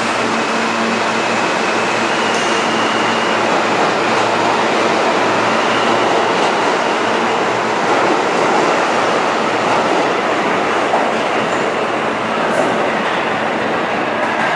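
New York City subway train moving past close by through an underground station, a loud, steady noise of wheels on rails.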